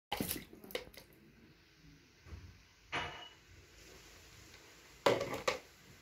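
Water splashing out of a small plastic toy bucket onto tiles, and the bucket knocking on the tiled floor, in a few short sudden bursts; the loudest pair comes near the end.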